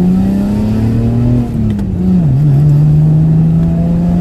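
Mazda 626 V6 engine pulling the car, its pitch climbing slowly, then dropping through a gear change about a second and a half in and settling to a steady cruise.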